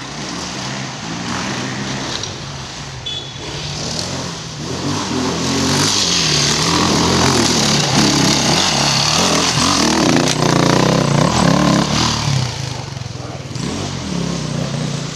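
Dirt bike engine revving hard and unevenly as the bike climbs a loose dirt slope. It grows louder about a third of the way in, is loudest through the middle, and eases off near the end.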